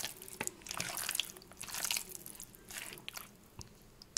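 A hand squeezing and kneading raw chicken pieces in a bowl: irregular wet squelching, which dies down after about three seconds.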